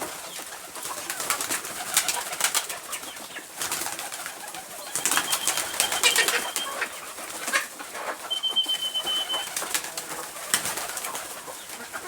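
A flock of pigeons and chickens feeding and moving about: many quick clicks and flutters, with two held, thin, high whistling bird notes around the middle.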